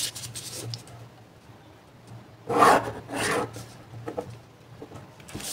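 Hand and plastic ruler rubbing and sliding across a sheet of graph paper, with two short rasping strokes about two and a half and three seconds in.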